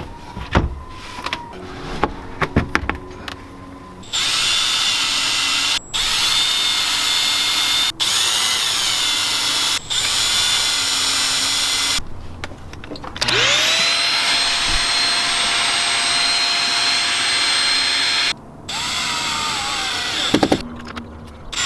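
Power drill running in three long bursts, starting and stopping on the trigger. It spins up with a rising whine at the start of the second burst. Light clicks and knocks of handled hardware come in the first few seconds.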